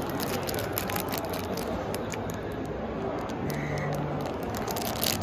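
Clear plastic bag around a small Bearbrick figure crinkling and crackling as it is handled, in a run of short crackles that is thickest in the first two seconds and again near the end, over a steady background hum.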